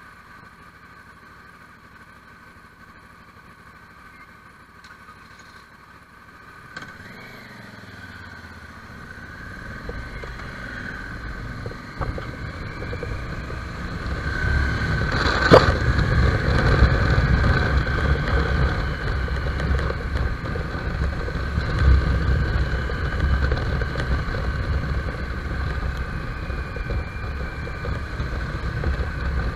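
Motorcycle engine ticking over quietly at first, then pulling away and getting under way. From about nine seconds in, a low rumble and wind noise on the microphone build with speed. There is one sharp knock about fifteen seconds in.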